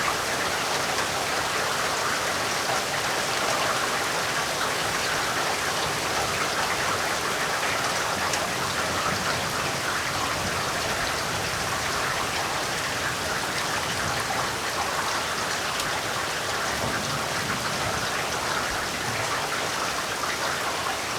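Heavy rain falling steadily, a dense even hiss of many drops hitting surfaces.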